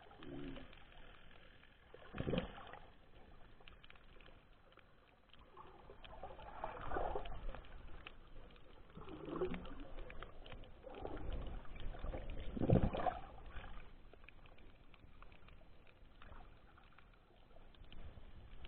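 Muffled water noise heard through a submerged camera's housing: sloshing and gurgling that comes in separate surges every few seconds, the strongest about two-thirds of the way through.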